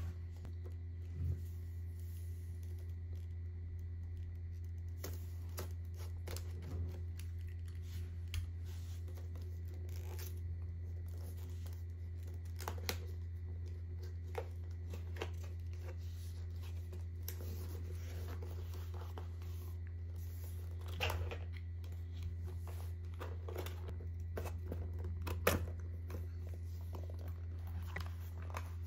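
Handling and opening a cardboard headphone box: rustling, tearing of the seal sticker and scattered small clicks and taps as the lid is pulled open, over a steady low hum.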